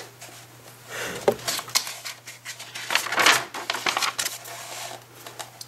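Pages of a picture book being turned and pressed flat by hand: paper rustling with light taps and scrapes, the loudest rustle about three seconds in.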